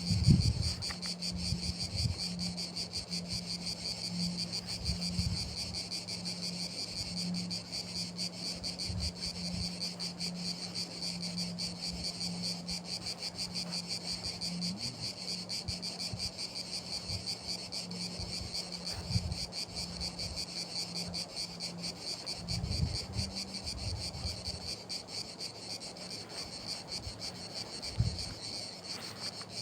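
Insects trilling without a break, a fast pulsing high-pitched chirr typical of crickets. Underneath is a steady low hum, with scattered low thumps, the strongest right at the start and near the end.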